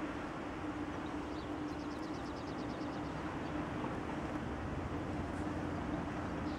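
Steady hum of a distant Renfe class 447 electric train standing at the station, one low even tone over a broad haze, with a short, rapid high trill about two seconds in.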